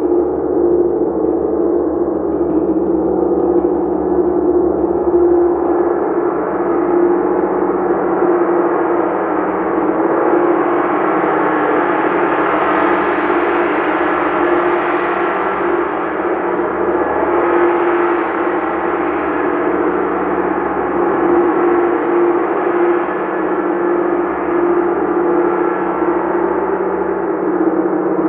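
Gong played continuously, a sustained ringing wash with a strong steady low hum. The upper overtones swell brighter around the middle and again near the end, without separate strikes standing out.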